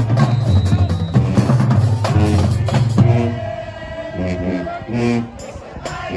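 High school marching band playing, with a drumline's bass and snare drums under a heavy low-brass bass line. It is loud for about the first three seconds, then drops in volume to shorter notes over the drums.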